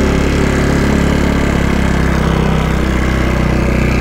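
Kawasaki KX250F's single-cylinder four-stroke engine running steadily at a light cruise while the bike is ridden, heard from the rider's own position.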